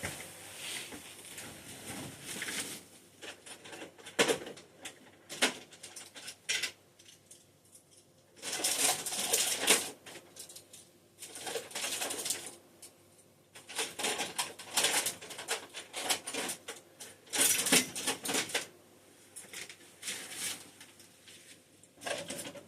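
Hand tools and small metal bits rattling and clinking while someone rummages through a tool drawer or box, with scattered clicks and several longer bouts of clatter.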